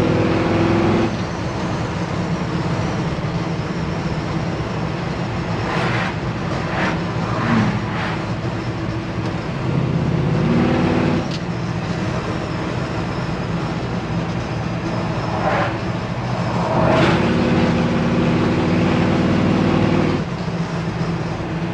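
1963 Chevrolet C-10 pickup's 350 V8 with headers and dual exhaust, running as the truck is driven. The engine note swells louder a few times: about a second in, around ten seconds in, and for a few seconds near the end.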